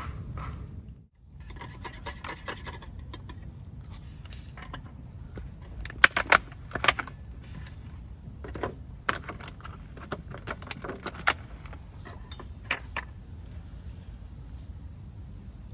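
Scattered light clinks and clatters of small hard objects being handled, loudest in a cluster about six seconds in.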